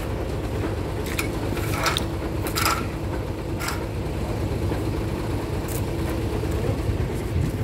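Dump truck engine running steadily at idle, with a few short clicks or knocks over the rumble.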